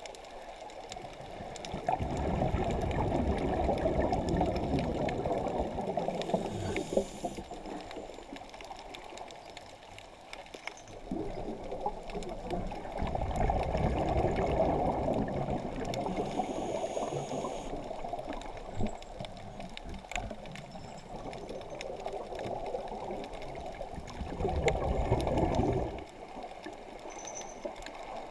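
Muffled underwater water noise, a low rushing and gurgling that swells up and fades away in long rushes several seconds apart, with faint scattered clicks.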